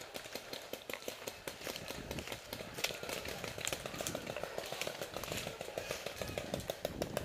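Footsteps through dry leaf litter: a dense, uneven run of small crunches and rustles as the wearer walks.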